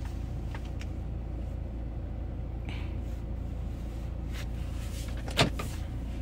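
Steady low hum of a Mercedes-Benz car engine idling, heard from inside the parked car's cabin, with a single sharp click about five seconds in.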